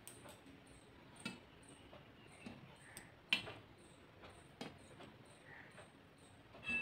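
A few faint clicks and taps from food being handled by hand on a steel plate, the sharpest about three seconds in.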